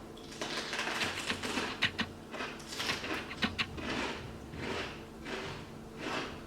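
Chewing of crunchy food: bites of raw jalapeño stuffed with cream cheese and Takis chips, crunching with irregular sharp clicks and crackles.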